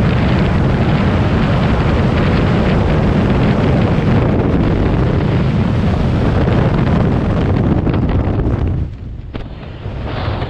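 Freefall wind blowing hard over a skydiver's helmet-mounted camera microphone, a loud, steady rumbling rush that drops sharply about nine seconds in.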